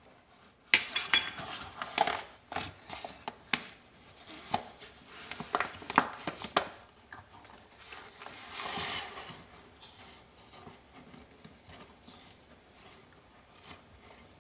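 Measuring cup clinking and scraping inside a paper flour bag as flour is scooped out, the first clink ringing, with the paper bag rustling. Around eight seconds in comes a softer rush as flour is tipped from the bag into a glass bowl.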